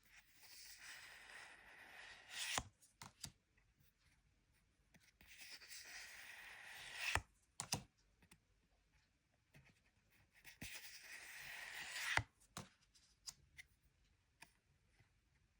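Quiet scratchy rustling and tearing of Pokémon card packaging, three times. Each stroke lasts about two seconds, grows louder and ends in a sharp click, with small clicks and taps between.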